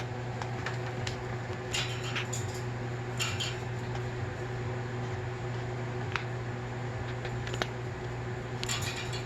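Scattered light clicks and short rattles of a small toy ball being played with by a cockatiel, over a steady low electrical hum.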